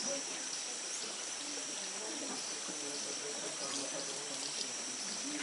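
Tropical forest ambience: a steady high-pitched insect drone over an even hiss, with faint low murmuring voices.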